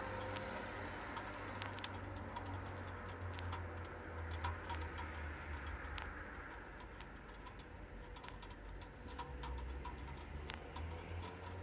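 Faint low hum with scattered light clicks and taps from hand work on a Thiokol Spryte snowcat's cab.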